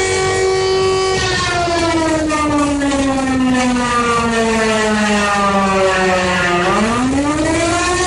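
Emergency alert (EAS) alarm: a loud, steady horn-like tone that slowly slides down in pitch from about a second in, then sweeps quickly back up to its starting pitch near the end.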